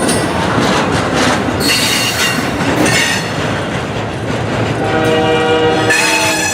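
Norfolk Southern freight train passing close by, its steel wheels squealing in high tones a couple of seconds in over the steady rumble and clatter of the cars. About five seconds in, a locomotive air horn sounds a chord for about a second and a half.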